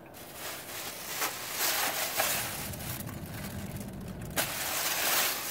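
A thin plastic carrier bag rustling and crinkling as it is handled, with a sharp sound about four seconds in as a mouthful of chocolate is spat into it.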